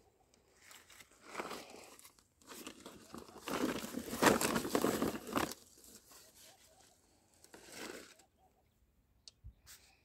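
Rustling and crinkling handling noise in several bursts, the longest and loudest from about two and a half to five and a half seconds in, then a few faint clicks near the end.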